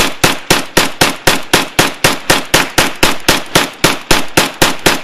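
AK-47-pattern rifle firing rapid, evenly spaced shots, about four a second, in one unbroken string, each crack tailing off briefly before the next.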